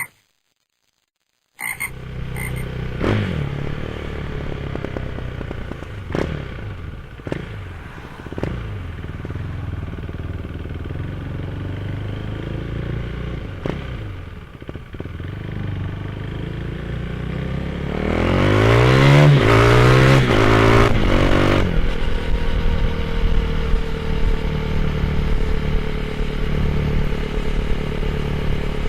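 Motorcycle engine with a GPR aftermarket exhaust idling, blipped with about five short throttle revs. Near the middle it is revved up and held for about three seconds, then drops back to idle.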